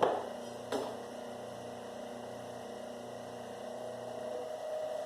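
Electric copper wire stripping machine running with a steady hum, with two sharp knocks in the first second.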